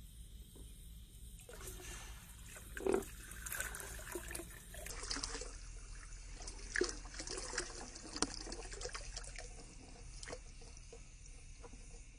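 Water trickling and dripping out of a plastic colander into a pond, with scattered small splashes and ticks.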